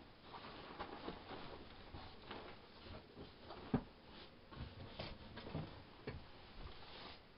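Faint, irregular small clicks and knocks over low room noise, with one sharper knock a little under four seconds in.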